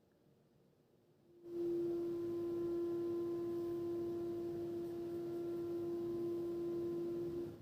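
A single steady low tone with a light hiss under it, starting suddenly about one and a half seconds in, holding level for about six seconds and cutting off abruptly near the end.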